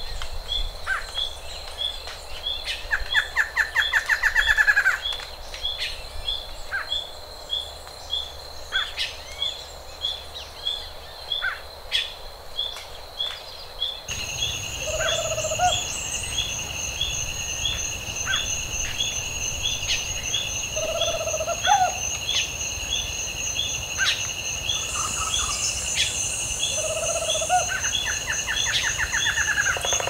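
Tropical forest ambience: insects trilling in steady, rapidly pulsing high tones, with birds calling over them, including a quick rising series of notes twice and a few short lower calls. About halfway through, the insect chorus changes to a different pair of steady tones.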